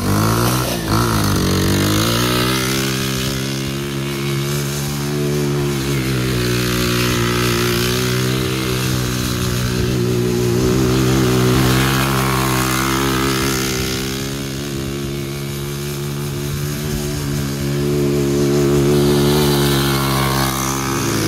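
High-output 140cc four-stroke pit-bike engine of an off-road go kart running hard under throttle while the kart drifts, its pitch dipping and climbing again a few times as the revs change.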